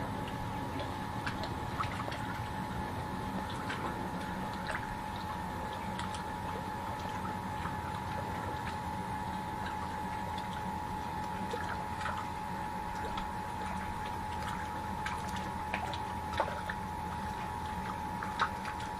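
Steady high whine over a low hum, with water sounds and scattered faint ticks.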